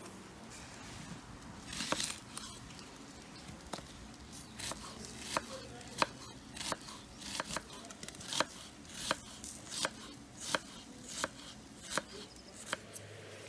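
Chef's knife slicing an onion on a wooden cutting board, the blade knocking against the board in a steady rhythm of about one and a half cuts a second, starting about four seconds in.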